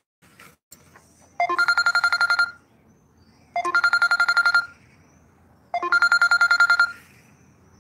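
Mobile phone ringtone for an incoming call: three trilling rings, each about a second long and about two seconds apart.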